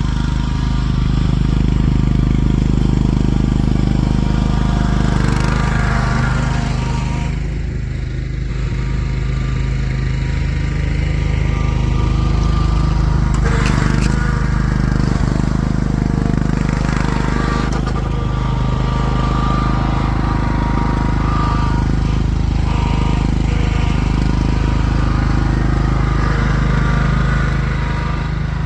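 Lawn tractor's small engine idling steadily after a cold start in sub-zero weather, its badly clogged air filter acting as a choke. A sharp knock about halfway through.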